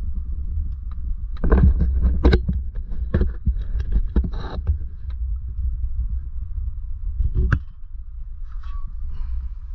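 Steady low wind rumble on the microphone, with scattered knocks and clunks. They are busiest between about one and a half and five seconds in, and there is one sharp knock about seven and a half seconds in.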